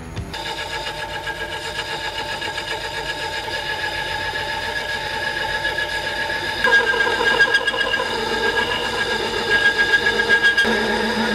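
Compact DIY lathe turning a brass bar: the spindle runs with a steady whine while the tool cuts. About two-thirds of the way through it grows louder and starts to pulse unevenly. This is a sound the maker calls wrong, traced to loose bolts holding the X-axis, which let the machine vibrate.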